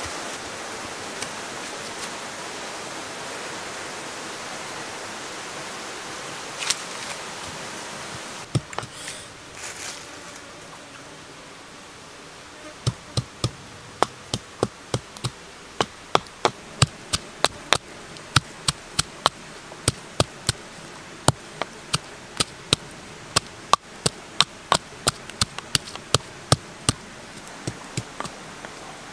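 Steady background hiss, then from about halfway a run of sharp, regular knocks, about two or three a second, from a pestle pounding in a small mortar.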